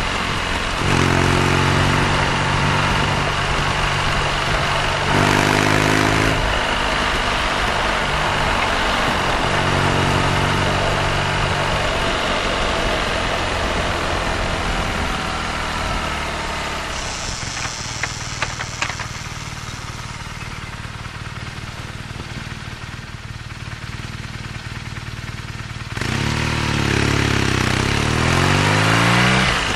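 BMW R nineT's 1170 cc air/oil-cooled boxer twin running under way, with its pitch shifting at gear changes. It drops to a quieter steady low note for about ten seconds in the middle, with a few sharp clicks, then revs up and pulls away loudly near the end. Wind hiss sits over the engine.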